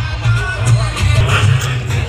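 Loud music with a heavy, pulsing bass and a melody line over it.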